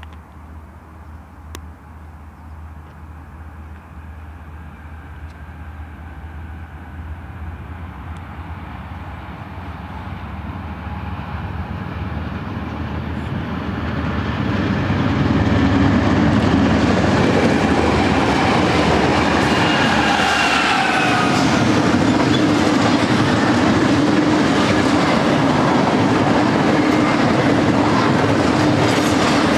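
BNSF double-stack intermodal train led by three GE ES44 diesel locomotives, approaching and passing. The locomotives' engines grow steadily louder over the first fifteen seconds. Then the stack cars roll by with a steady rumble of steel wheels on the rails, and a brief falling whine comes near the middle.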